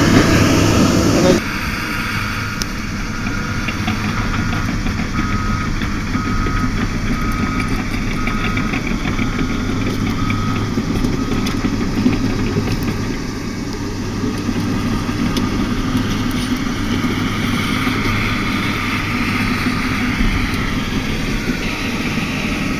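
CAT 963D track loader's diesel engine running as the machine moves and works. The engine drops suddenly in loudness about a second in, and a repeating beep sounds over it for several seconds in the first half.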